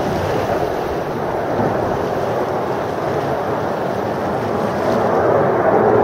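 Steady roar of the jet engines of a five-ship formation of Aermacchi MB-339 PAN jet trainers flying past, growing a little louder near the end.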